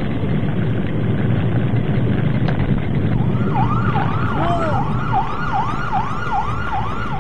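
A low, steady rumble of car and road noise. From about three seconds in, an emergency vehicle siren wails in a fast yelp, swooping up and down about two and a half times a second.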